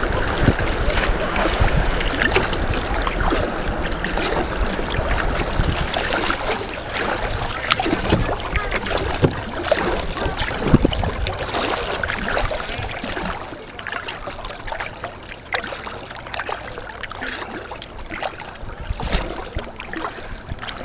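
Water splashing and lapping around a moving kayak, with wind rumbling on the microphone for the first few seconds. It gets quieter after about 13 seconds, as the water calms.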